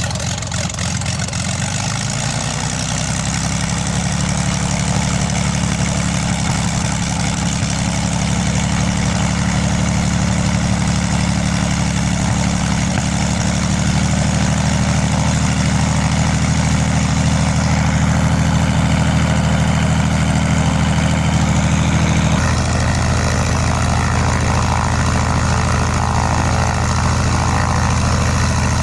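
LOM Praha M337-AK six-cylinder inverted inline aero engine running steadily on its first run after an overhaul, freshly started. Its note settles about two seconds in, then changes abruptly to a different engine speed about 22 seconds in.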